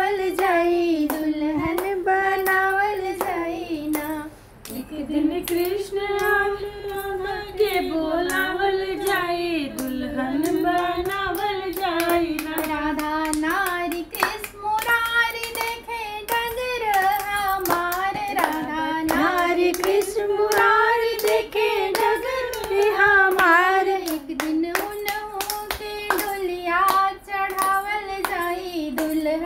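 A woman singing a kajri, a North Indian folk song, alone and without instruments, her high voice held in long wavering phrases. Frequent sharp taps or claps sound throughout.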